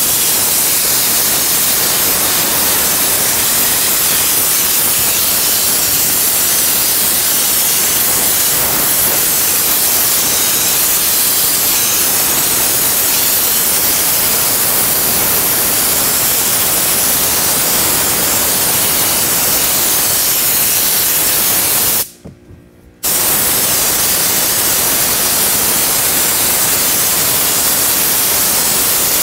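Hand-held spray gun on an air hose hissing steadily as it sprays upholstery glue. It stops for about a second roughly three-quarters of the way through, then starts again.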